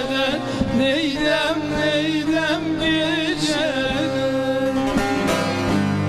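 Turkish folk music from a bağlama (long-necked saz), plucked throughout. A wavering, sustained melody line runs over it for the first four seconds or so. From about four and a half seconds the saz carries on with quick repeated plucked strokes.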